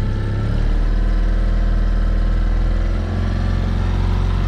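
A 2019 Mercury 9.9 hp four-stroke twin-cylinder outboard kicker motor running steadily at about a third throttle while being broken in, under load pushing a heavy boat at under 2 mph.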